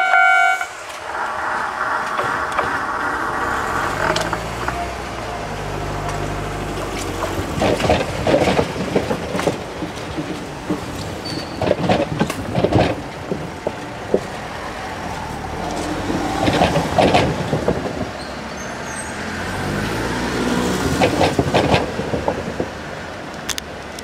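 Kintetsu 22000 and 12600 series electric limited express pulling away past a level crossing, its wheels clicking over rail joints in repeated bursts that fade as it recedes. A low motor hum comes a few seconds in. A ringing level-crossing alarm cuts off about a second in.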